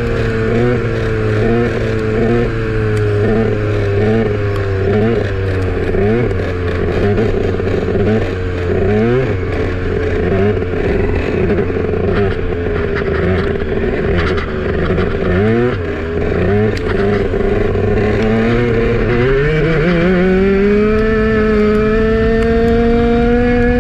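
Onboard sound of a 200cc four-stroke single-cylinder racing kart engine running hard, with other karts' engines rising and falling close by. About twenty seconds in, its pitch climbs and then holds higher as it accelerates.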